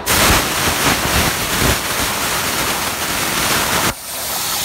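CNC plasma cutter torch cutting: a loud, steady hiss that starts suddenly and cuts off just under four seconds in.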